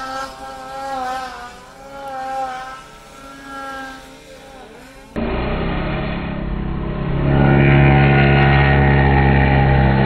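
Snowmobile engines. First a sled runs at a distance, its pitch wavering up and down as it works through deep powder. After a sudden cut, a sled runs close by and louder, revving up about seven seconds in and holding high revs.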